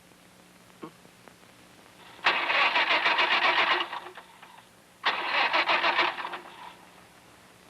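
A car engine being cranked by its starter in two bursts of about a second and a half each. It turns over fast and evenly but does not catch.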